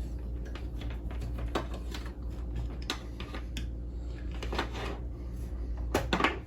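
Scattered light clicks, taps and knocks of music gear and cables being handled and moved about on a desk, a few louder knocks among them, over a steady low hum.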